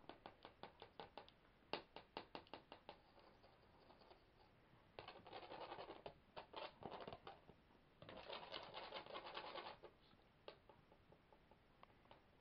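Faint scratching and rapid clicking from kittens playing with a wand toy on a rug: a quick run of clicks at about five a second, then two longer bouts of scratchy rustling.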